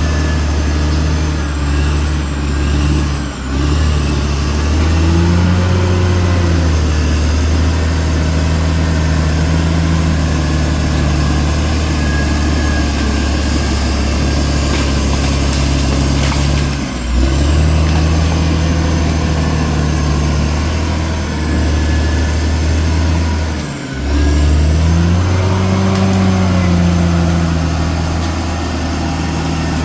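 CAT D6R XL bulldozer's diesel engine running steadily under load, its pitch rising and falling as the throttle changes. The sound dips sharply and briefly three times.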